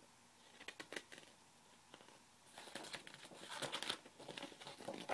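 A picture book's page being turned: faint paper rustling and handling, starting about halfway through and loudest near the end, after a couple of light taps about a second in.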